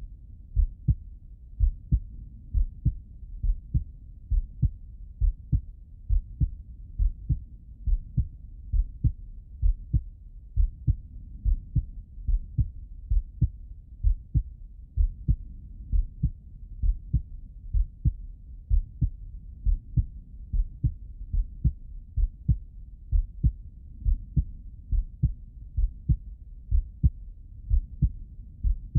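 A man's heartbeat heard through a stethoscope bell: a steady rhythm of low, muffled lub-dub thuds, each beat a close pair.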